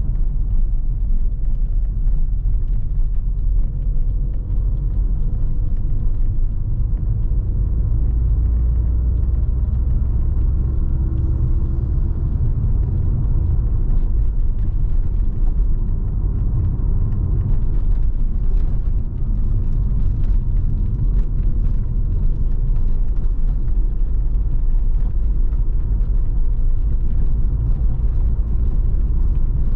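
A 2016 Mercedes-AMG GLA 45, with its 2.0-litre turbocharged four-cylinder engine, being driven: a steady low rumble of engine and road noise that holds even throughout.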